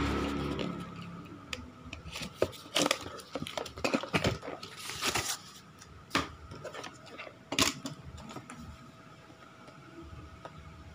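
Cardboard shipping parcel being cut and torn open and the boxed router pulled out: an irregular run of rustles, rips and knocks of cardboard and plastic wrap, with one sharp snap near the end, then quieter handling.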